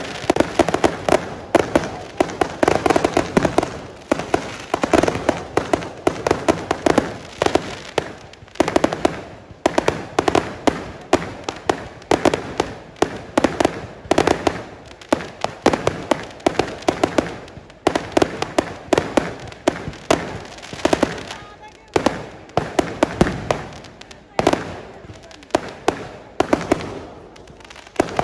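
Fireworks display: volley after volley of sharp bangs and cracks, several a second, coming in waves with short lulls between them.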